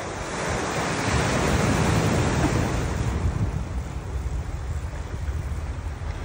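Ocean surf: a wave breaks and washes in, building over about two seconds and then fading, with wind rumbling on the microphone underneath.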